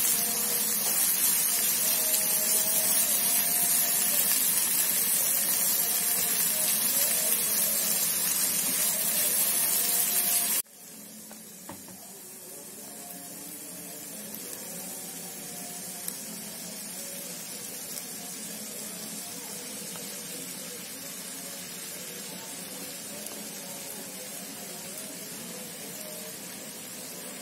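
Ground chili spice paste frying in oil in a pan, a loud steady sizzle as it is stirred; about ten seconds in it cuts abruptly to a much quieter sizzle.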